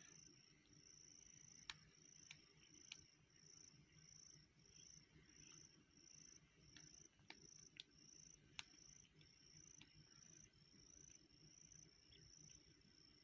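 Near silence with a faint insect chirping: a high-pitched pulsing call repeating about twice a second. A few short, sharp clicks are scattered through it.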